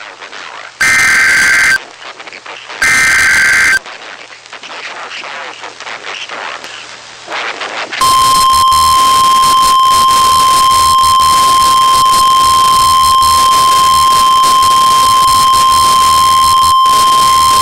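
NOAA Weather Radio Emergency Alert System broadcast: two one-second bursts of SAME digital header data, a second apart, then a few seconds of radio hiss. About eight seconds in, the steady 1050 Hz weather radio warning alarm tone starts and holds.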